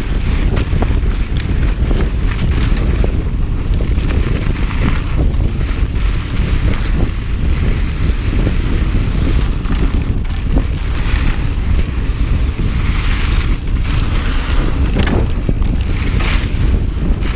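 Heavy wind rumble on the microphone of a mountain bike moving along dry dirt singletrack, with a hiss of tyres on dirt that swells at times and scattered clicks and rattles from the bike over bumps.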